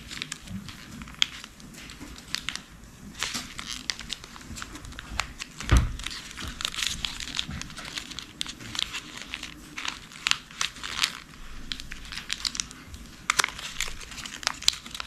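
Origami paper rustling and crinkling in many short crackles as fingers fold, open and press the small pieces of a paper spinning top. A single dull thump a little under six seconds in.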